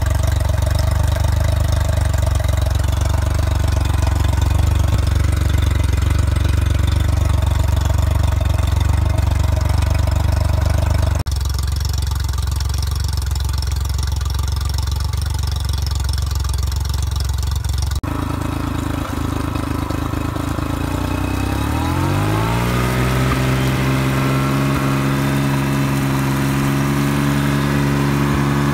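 Honda BF50 four-stroke outboard motor running steadily, test-run after a water pump replacement, with water splashing around its lower unit. Near two thirds of the way through it revs up smoothly over a couple of seconds and holds at the higher speed.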